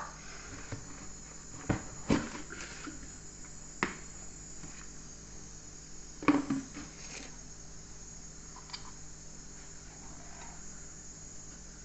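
A few light knocks and clicks of kitchen utensils being handled, the loudest about six seconds in, over a steady faint high hiss.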